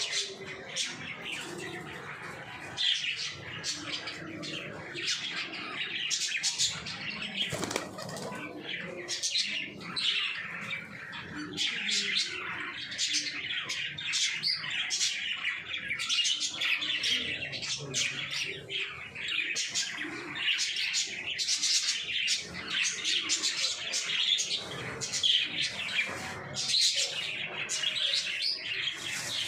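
Pigeons' wings flapping again and again, with bird calls mixed in.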